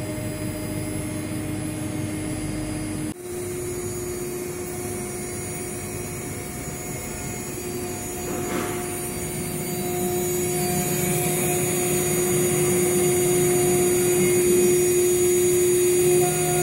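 A 6090 desktop CNC router's spindle runs with a steady whine as a small engraving bit mills a metal plate. The pitch steps up slightly about three seconds in, and the cutting grows louder in the second half.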